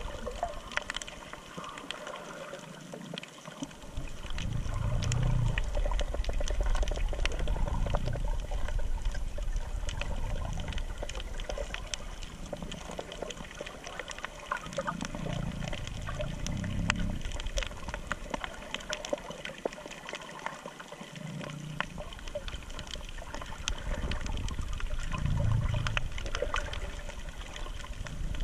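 Underwater noise picked up by a submerged camera: a steady watery hiss with scattered crackling clicks and low muffled surges every few seconds.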